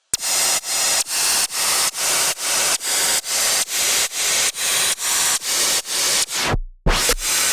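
Harsh static-like white noise pulsing in an even rhythm, a little over two bursts a second. About six and a half seconds in the noise stops, a deep bass tone comes in and an electronic beat starts.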